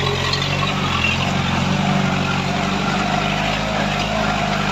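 Off-road Jeep's engine running under load, heard from inside the cabin, its note stepping up slightly about a second and a half in.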